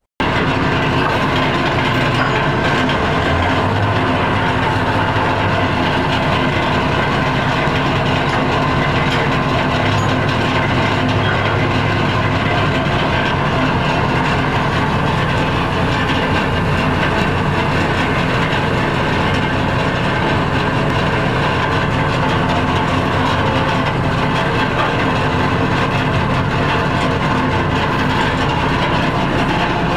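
Heavy crane-barge machinery running steadily while steel I-beams are pulled, a loud, dense mechanical rattle over a low engine hum. It starts abruptly and holds an even level, with the hum swelling a little now and then.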